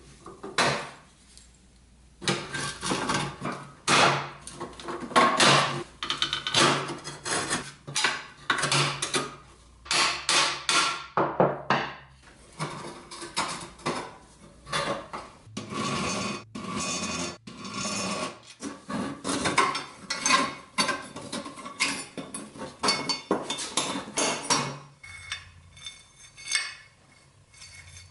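Rusty pressed-steel toy parts clinking and clanking as they are taken apart by hand, a steel axle rod being worked out of its bracket and gear cover. Irregular metallic knocks that die down near the end.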